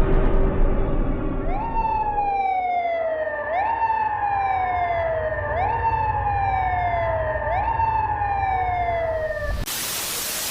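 Emergency alert siren: over a steady chord of horn-like tones and a low rumble, a wailing tone sweeps up quickly and falls slowly, repeating about every two seconds, four times. Near the end it cuts off suddenly into loud static hiss.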